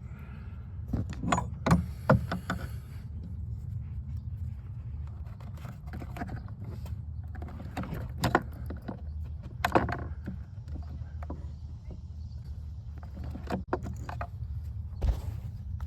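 Scattered clicks and knocks of hand tools and small hard parts being handled while fitting a blower motor resistor under a dashboard, over a steady low hum. The clicks come in irregular clusters, the loudest about a second or two in.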